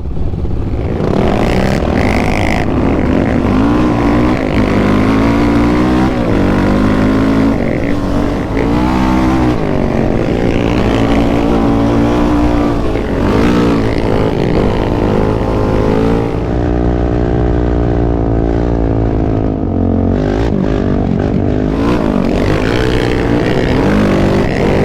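Sport quad (ATV) engine running under heavy throttle, its pitch repeatedly rising and falling as the rider gets on and off the gas, holding a steadier speed for a few seconds past the middle.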